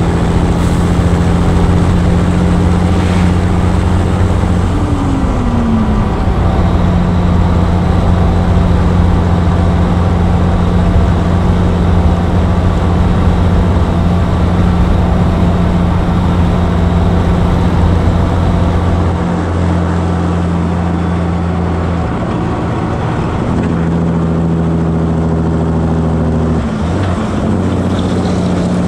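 Heavy truck diesel engine running steadily while driving, a deep drone. A short pitch slide comes about five seconds in, and the engine note drops around twenty seconds in and changes again a few seconds later.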